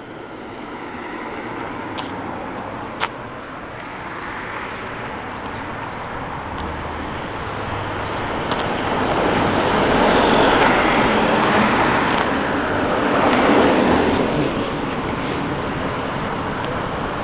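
Road traffic: cars passing along a town street, the tyre and engine noise swelling twice as vehicles go by past the middle. A brief click about three seconds in.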